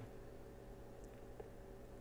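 Very quiet room tone with a steady low hum and a couple of tiny faint ticks.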